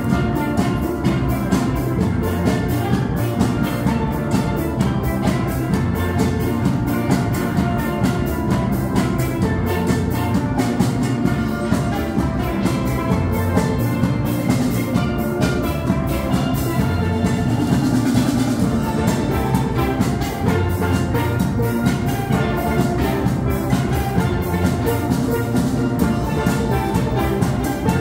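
A steel band playing a fast, rhythmic tune on steelpans, from high lead pans down to deep bass pans, backed by a drum kit.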